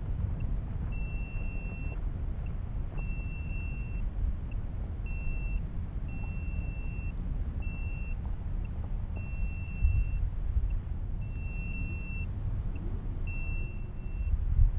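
A downed FPV freestyle quadcopter's beeper sounding a repeating pattern of high beeps of uneven length, the locator alarm of a drone lying in the grass. Wind rumbles on the drone's camera microphone throughout, with stronger gusts about two-thirds of the way in and near the end.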